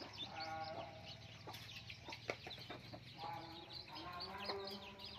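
Two drawn-out calls from a chicken, one near the start and one about three seconds in, over steady chirping of small birds and a few sharp taps.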